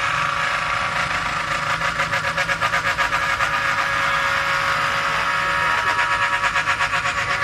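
Engraving machine's spindle running as its cutter bores holes in a button box: a steady whine with a fast, even pulsing. It cuts off near the end.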